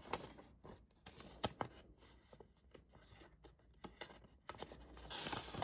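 Light handling of a paper instruction leaflet: soft rustles and scattered small clicks and crackles, with a longer rustle near the end.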